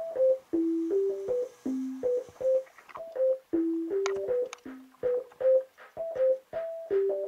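Background music: a simple, hopping melody of short single notes over a light clicking beat.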